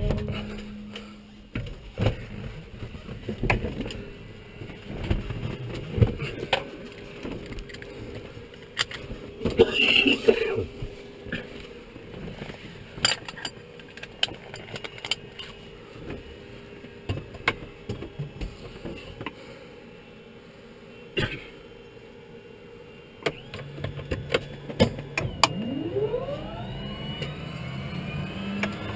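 Cockpit switch clicks and handling knocks, then the Pilatus PC-6 Turbo Porter's turboprop engine being started: a low hum comes in and steps up about 23 seconds in, followed by a rising whine as the turbine spools up near the end.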